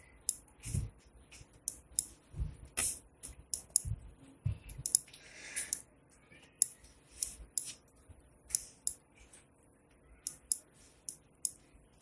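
Computer mouse buttons clicking irregularly, many short sharp clicks, with a few soft low thumps in the first half.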